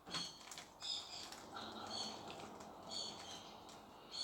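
Plastic Rubik's Cube layers being turned in quick succession: a run of faint, irregular clicks as the faces snap round during a solving move sequence.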